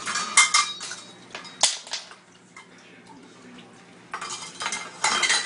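Kitchen utensils clinking against a mixing bowl while sugar is added to cream cheese. There is a quick cluster of clinks at the start, a single sharp clink about one and a half seconds in, and a longer run of clattering near the end.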